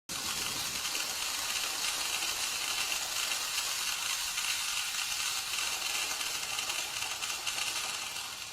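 A steady hissing noise, with most of its energy in the upper range, fading near the end.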